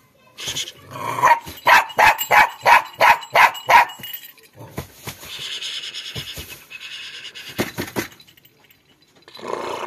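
Puppy barking in a quick run of about eight sharp barks, roughly three a second, followed by a few seconds of softer rustling noise.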